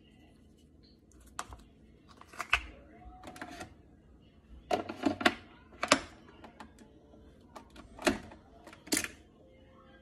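Sharp plastic clicks and knocks from hands working the top of a Dolce Gusto capsule coffee machine, a handful spread out, the loudest cluster about five to six seconds in.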